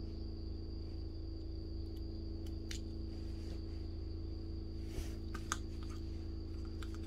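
Steady low electrical hum with a thin constant high-pitched tone over it, and a few small sharp clicks as plastic connector leads are plugged into an RC receiver and handled.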